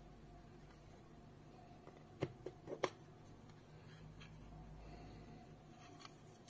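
Plastic housing of a round water-leak sensor being twisted apart by hand: a quick cluster of four or five sharp plastic clicks about two seconds in, over a faint steady hum.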